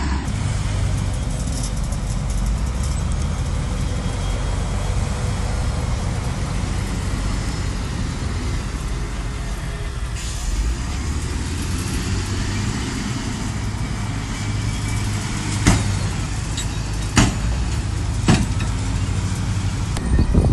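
Heavy diesel earthmoving machinery running steadily under work, with three sharp metallic knocks in the last few seconds.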